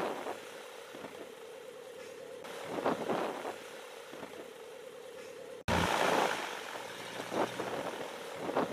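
Homemade ultralight aircraft's engine running with its nose propeller turning, a steady drone that swells every two to three seconds.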